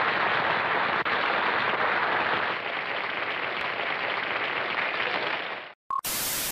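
Old recorded audience applause, a dense steady clatter of many hands that cuts off near the end. It is followed by a short beep and a burst of TV static hiss.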